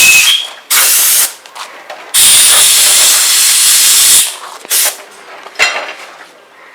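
Compressed air blasting in loud hissing bursts: a short one, a burst of about half a second, a longer one of about two seconds, then a brief puff, with small clicks in the gaps.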